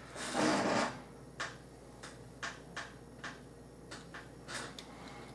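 A soft rustle, then faint irregular light clicks of a small screwdriver driving a screw back into the side of a plastic toy truck cab.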